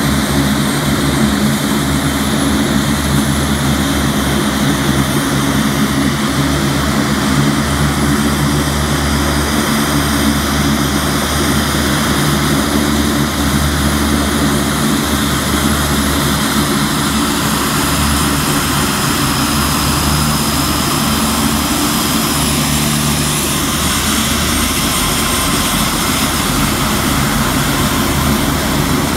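The four turboprop engines of a C-130 Hercules running on the ground, a loud steady propeller drone with a high turbine whine. About 17 seconds in, the tone of the drone and the whine shifts as the aircraft starts to taxi and turn.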